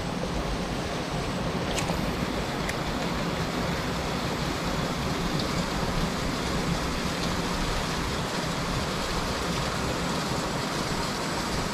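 Steady rush of flowing river water, with a couple of faint clicks about two seconds in.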